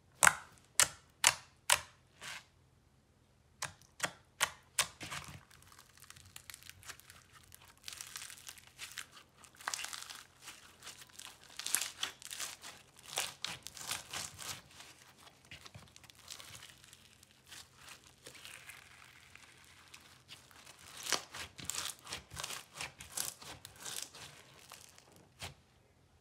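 Floam slime being handled: fingers pressing into it give a quick run of about five sharp pops, then kneading and folding it produces a dense, crunchy crackling as the foam beads squash and rub.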